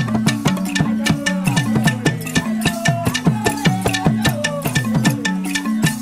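Dagara gyil, a wooden-keyed xylophone, played with rubber-tipped mallets in a fast, continuous run of interlocking struck notes, each note a sharp wooden attack with a short ring.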